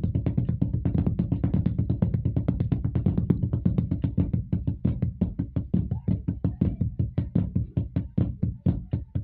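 Drum strokes played in a fast, even stream: a left-hand-heavy drum lick with flams. A low steady sound lies under the strokes for the first half and fades out about halfway through, leaving the hits clearer.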